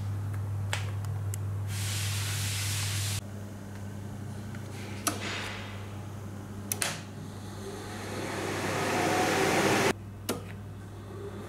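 Steady electrical hum and fan noise from a Fanuc AC spindle servo unit test rig, broken by several sharp switch or relay clicks. After the start button is pressed, a whir rises for a few seconds as the spindle motor runs up.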